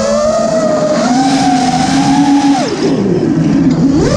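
Motors and propellers of a 5-inch FPV freestyle quadcopter whining, heard from the craft itself. The pitch rises and holds, falls steeply a little under three seconds in as motor speed drops, then climbs sharply again near the end.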